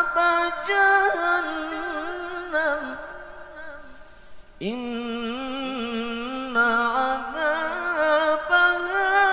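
A man's melodic Quran recitation (tilawah), sung in long ornamented phrases into a handheld microphone. A phrase dies away about three to four seconds in, and a new one begins with an upward swoop about halfway through.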